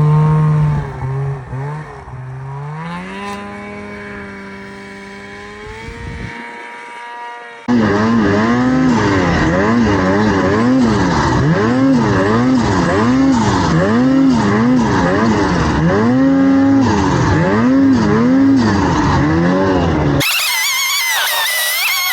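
Snowmobile engine running and stepping up in pitch. Then, after a break, it is revved up and down over and over, about once a second. In the last two seconds a thinner, higher wavering sound takes over.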